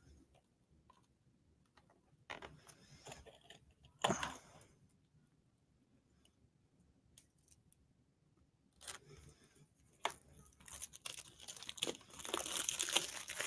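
Packaging being torn open and crinkled by hand: a few separate rustles, the loudest about four seconds in, then near-continuous crinkling over the last couple of seconds.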